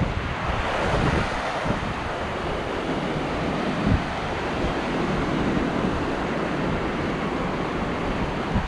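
Waves breaking and washing up a sandy beach, a steady surf, with wind buffeting the microphone in low gusts.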